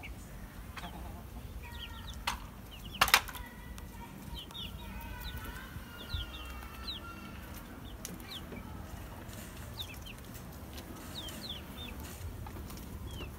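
A small flock of resting hens giving soft clucks and low calls, with many short high chirps throughout. A sharp flutter or knock stands out about three seconds in, the loudest sound here.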